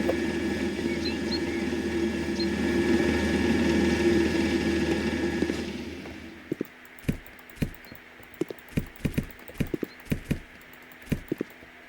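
A steady mechanical hum that dies away about six seconds in, followed by irregular sharp knocks or taps, roughly two a second.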